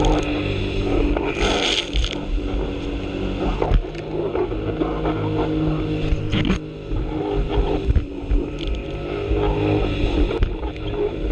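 Sea-Doo jet ski running at speed, its engine a steady drone that shifts slightly in pitch, over the rush of water and spray. A few sharp knocks and splashes as the hull hits the waves.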